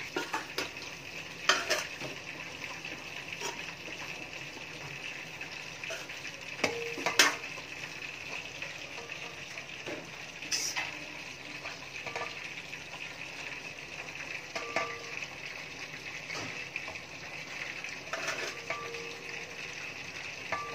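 Metal spoon scooping cooked biryani rice out of one steel pot into another, with scattered clinks and knocks of spoon on steel, a few of them ringing briefly. A steady hiss runs underneath.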